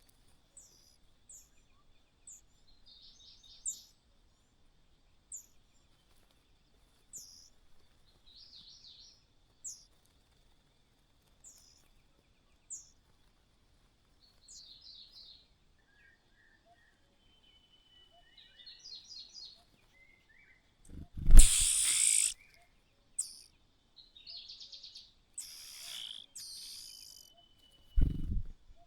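Small birds calling with short, high, falling chirps about once a second, mixed with quick rattling trills. About two-thirds of the way through comes a loud noisy rustle with a low thump, then harsh buzzy calls, and a second thump near the end.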